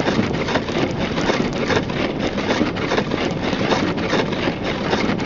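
Car driving on snowy roads, a steady rush of tyre, road and engine noise heard from inside the cabin.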